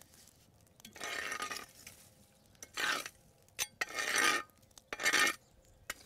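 A long-handled oven rake scraping hot embers and ash across a stone slab: four rough strokes about a second apart, with light clicks of coals between them. The hot stone is being cleared so bread can be baked on it under the ashes.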